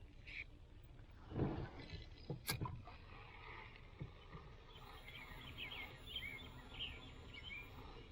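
Birds chirping faintly, a run of short quick calls through the second half, over low outdoor background noise. A brief rustle comes about a second and a half in and a single sharp click about a second later.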